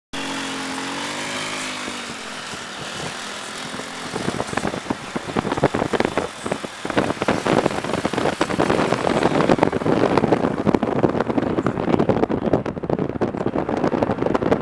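Road traffic heard from a moving car: an engine's hum, wavering slightly in pitch, for the first few seconds, then wind buffeting the microphone, which takes over and grows louder from about four seconds in.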